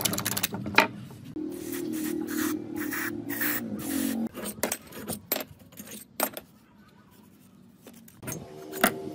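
Metal clicks, scrapes and knocks of hand tools and parts on a small air-cooled single-cylinder engine's cylinder head as it is worked loose. In the middle a steady hiss of aerosol spray lasts about three seconds, and a sharp metal clink comes near the end.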